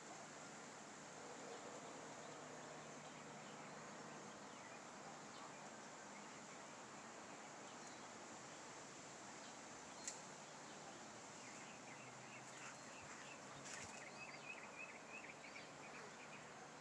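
Faint outdoor hiss with a single sharp tap about ten seconds in, then a run of quick, high chirps through the last few seconds.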